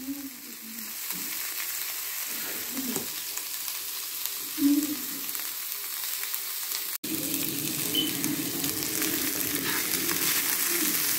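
Trout pieces frying in butter in a nonstick skillet: a steady sizzle, with a brief soft thump about halfway. After a cut, the sizzle is fuller and a spoon stirs and scrapes rice and noodles in the hot pan.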